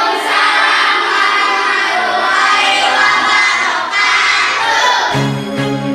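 A class of children answering in unison with a drawn-out, chanted reply to the teacher's Islamic farewell greeting. About five seconds in, the voices give way to background music with a steady beat.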